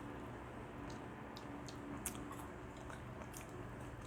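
Faint chewing and eating sounds, with a few small sharp clicks over a steady low background hum.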